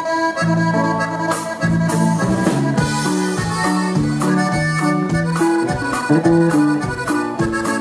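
Live norteño band playing the instrumental opening of a song: a button accordion carries the melody over bass and steady percussion.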